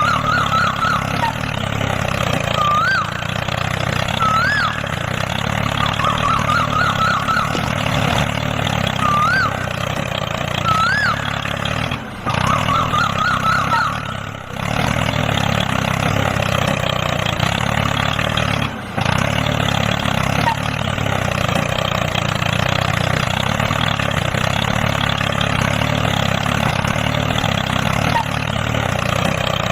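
A small engine running steadily, cut off abruptly for a moment three times. Through the first half there are short whistle-like tones that rise and fall, some single and some warbling in quick runs.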